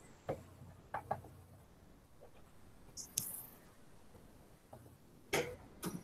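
A few faint, scattered clicks and small knocks over quiet room tone. The loudest comes a little past five seconds in, with another just after it.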